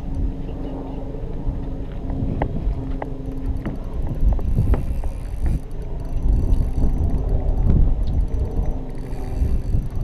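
Wind buffeting the microphone with a low rumble. A steady low hum fades out after the first few seconds, and scattered sharp clicks come through from about two seconds in.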